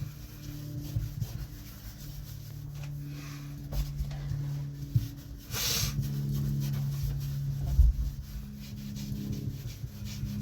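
Cloth rubbing and wiping wax cleaner over the cab's interior surfaces in irregular strokes, with one sharp, hissy swipe about halfway through and a knock a couple of seconds later.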